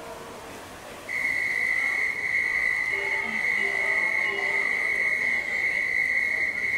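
Underwater hockey referee's underwater sounder giving one steady high electronic tone. It starts abruptly about a second in and is held without a break, the signal that stops play.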